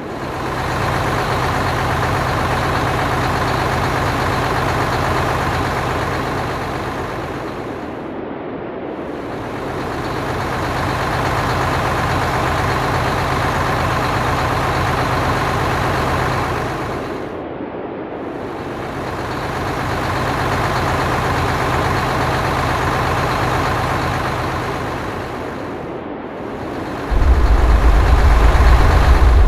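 Locomotive engine sound effect running steadily, swelling and fading in a repeating loop of about nine seconds. Near the end a much louder deep rumble starts.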